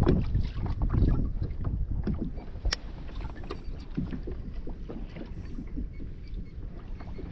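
Wind rumbling on the microphone and water moving against a kayak's hull at sea, loudest at the start, with a single sharp click a little under three seconds in.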